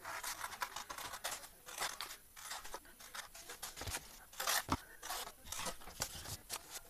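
Scissors cutting through a paper plate: a string of faint, irregular snips of stiff paper, one stronger snip about two-thirds of the way through.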